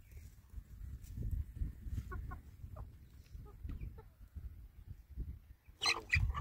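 Chickens clucking as they peck about, with short scattered calls and a louder squawk near the end, over a low rumble.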